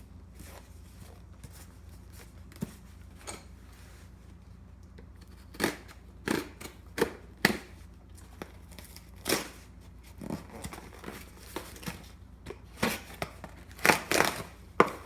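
A cardboard box being opened by hand: short, scattered rips and crinkles of tape and packing material, starting about five seconds in, over a faint steady low hum.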